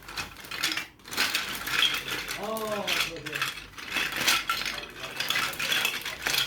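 Small plastic Lego pieces clattering and clinking as they are handled, a dense run of quick light clicks. A brief voice sound about two and a half seconds in.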